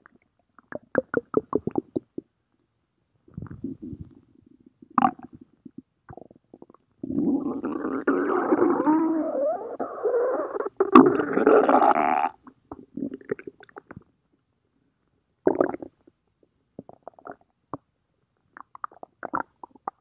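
Stomach growling: irregular gurgles and rumbles, including a quick run of short pulses about a second in and, midway, a long continuous rumble lasting several seconds that is the loudest part, followed by scattered smaller gurgles.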